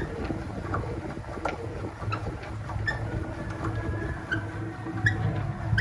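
Six-frame stainless-steel honey extractor spinning, with a low rumble and a short squeak repeating about every 0.7 s.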